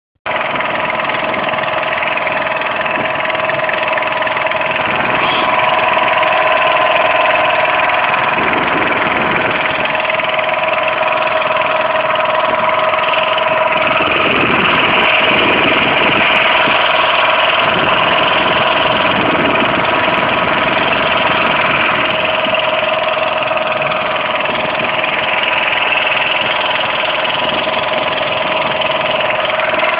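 Boat motor running steadily under way, one even engine note held throughout, over a rushing of wind and water.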